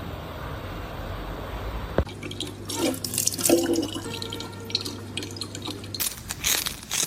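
Water running steadily, like a tap into a sink. It cuts off suddenly about two seconds in, and assorted knocks and clatter follow.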